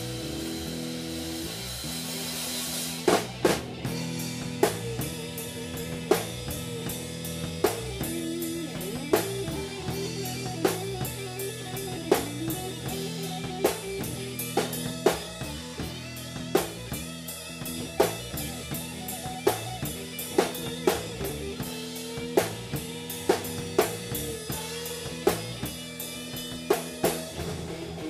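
A rock band playing live in rehearsal: electric guitar and bass holding chords, with a drum kit coming in about three seconds in and keeping a steady beat.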